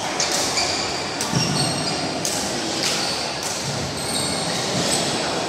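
Badminton rally in a large indoor hall: sharp racket hits on the shuttlecock at irregular intervals and short high squeaks of shoes on the court floor, over a steady hubbub of the hall.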